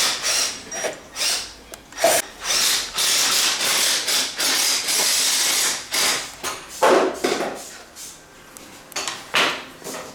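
Workshop tool and handling noises: a series of short rubbing and scraping strokes, with one longer stretch of steady noise around the middle.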